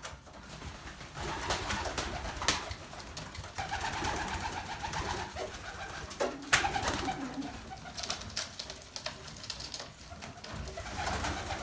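A flock of pet birds calling at feeding time, with a few sharp clicks, the loudest a little past the middle.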